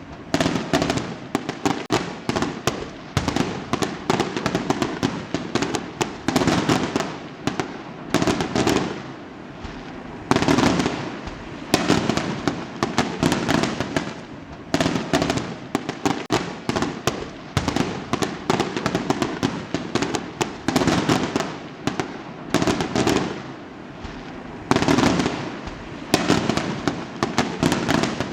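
Fireworks exploding in rapid succession: a continuous barrage of sharp bangs, several a second, with crackling between them.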